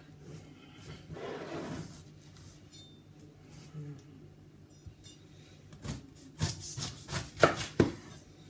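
A large kitchen knife cutting up a whole pineapple: the fruit's rough skin rubs and scrapes as it is handled, then a quick run of sharp cuts and knocks comes near the end.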